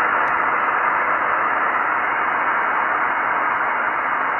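Steady hiss from an Icom IC-9700 receiving upper sideband on the FO-29 satellite's 435.8 MHz downlink, with no voice coming through. The hiss has no top end, cut off by the sideband filter.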